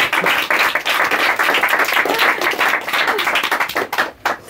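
A small audience applauding with their hands, the clapping dying away near the end.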